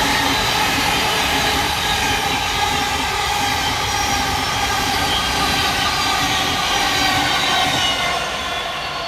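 Thameslink Class 700 electric multiple unit running through the station at speed: a steady rush of wheels on rail with several high, steady whining tones, fading near the end as it goes past.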